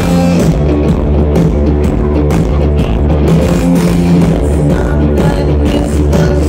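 Live rock band playing loudly through a festival PA, heard from the crowd: electric guitars, bass and drums in a steady groove, with keyboards on stage.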